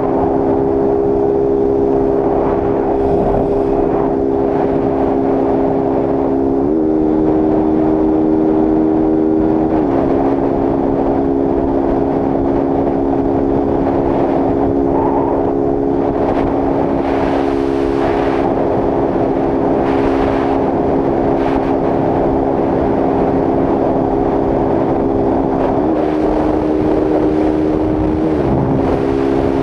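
Honda CG Start 160's single-cylinder engine, running without its air filter, held steady at high revs near top speed (about 120 km/h), with wind rush. The engine note dips slightly twice and recovers a few seconds later each time.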